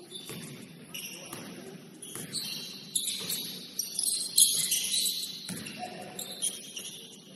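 Basketball game on a gym court: sneakers squeaking on the floor and a ball bouncing, with a few dull thuds. The squeaks are busiest about four to six seconds in.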